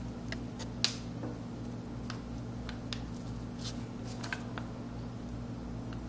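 Small soapstone seal pressed and rocked on paper to make an ink imprint: a few faint clicks and taps, the sharpest about a second in. Under it, a steady low hum.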